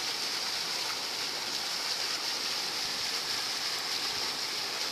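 Running water rushing steadily, as from a stream or small waterfall, an even hiss with no breaks.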